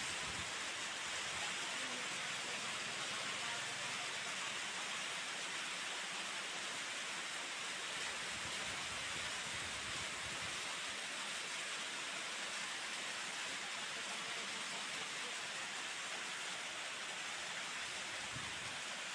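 A steady, even hiss of background noise, with faint low rumbles now and then.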